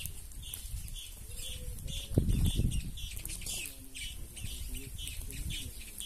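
A flock of red-cowled cardinals chirping, with many short high calls overlapping, and a few lower clucking notes among them. A brief loud low rush about two seconds in.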